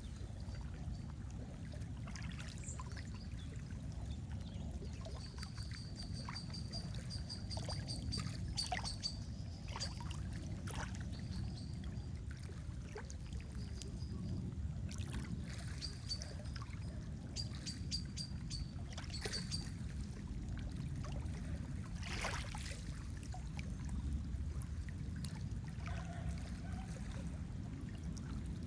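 Lake water lapping with a steady low wash and scattered small splashes and drips. A small bird sings a high, rapid run of repeated notes twice, about five seconds in and again past the middle.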